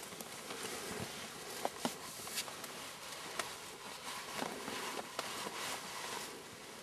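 Soft rustling with scattered small sharp clicks and snaps, a few louder ones about 1.7, 2.4 and 3.4 seconds in.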